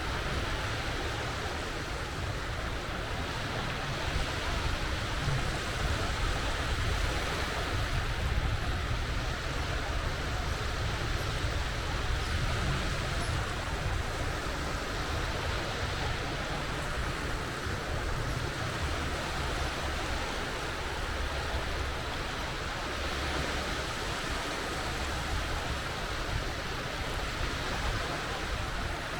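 Sea waves washing onto the shore in a steady, continuous wash of surf with a low rumble underneath, swelling slightly about a quarter of the way in.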